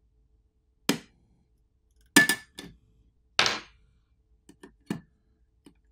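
A few sharp clicks and snaps as a phone's metal mid plate is pried up with a pry tool and popped loose from the phone's frame. The loudest two come about two and three and a half seconds in, followed by lighter ticks as the plate is handled.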